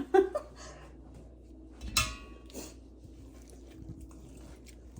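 A few light knocks and clinks of kitchen utensils against dishes, with one sharper ringing clink about two seconds in.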